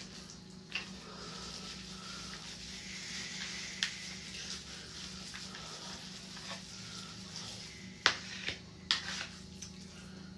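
Food being stirred and mixed in a dish, a soft crackling swish, with a few sharp clinks of a utensil against the dish, the loudest near the end, over a steady low hum.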